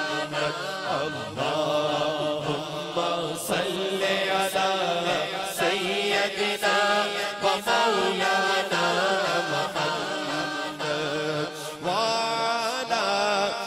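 Male voices chanting durood, the Islamic blessing on the Prophet Muhammad, into microphones in a long, drawn-out melody with held and gliding notes. A faint tick sounds about once a second.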